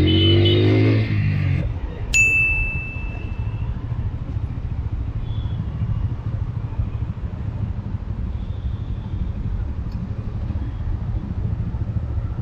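Motorcycle engine running at low speed in traffic, a steady low rumble, with a single bright ding about two seconds in that rings out over a second or so.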